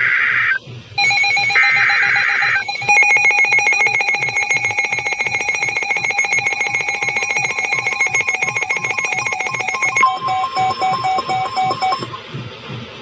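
Emergency Alert System tones: short screeching data bursts of the alert header, then a loud steady electronic alert tone that pulses evenly for several seconds and changes to a choppier pattern about ten seconds in before dropping away.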